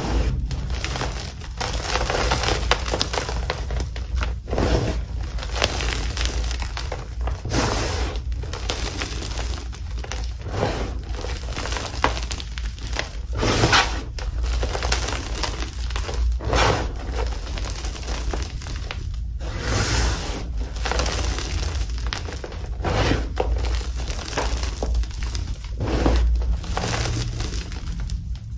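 Hands crushing and squeezing crunchy-yet-soft dip-dyed Magking gym chalk blocks, air-dried for a week, into loose powder: uneven crunching and crumbling in repeated bursts.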